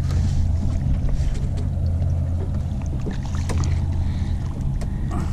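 Small boat's motor running at a steady low idle, with a few light knocks and splashes of water against the hull.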